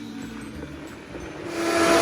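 Electric blender mixing a piña colada: the motor runs low and quieter, then speeds up again with a rising whir about one and a half seconds in.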